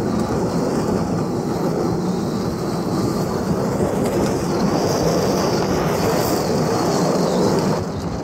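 Steady rumbling noise of a truck driving slowly on asphalt while towing a riding mower, with engine and tyre sound blended together, easing slightly near the end.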